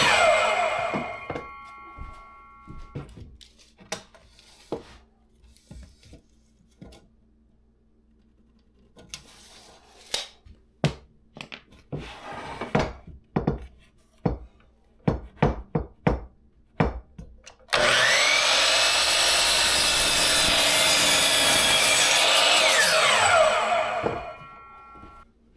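Power saw crosscutting 2x6 boards to length: a cut ends and the blade winds down with a falling whine about a second in, then a run of separate knocks and clicks. About two-thirds of the way through the saw starts abruptly on a second cut for about six seconds, then winds down with a falling whine near the end.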